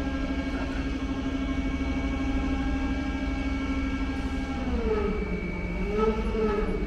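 Heavy truck engine running with a steady note that drops and then wavers in pitch about four and a half seconds in.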